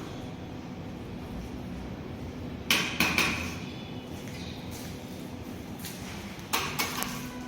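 Two bursts of hard knocks and clatter about four seconds apart, each made of two or three quick hits with a short ring after them.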